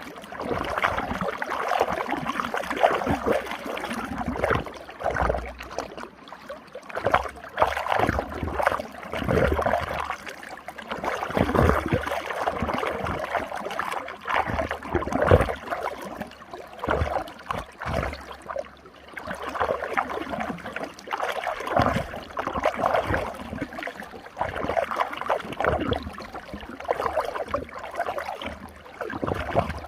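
Running water swirling in an eddy of a stream, splashing and gurgling, surging and easing irregularly every second or two.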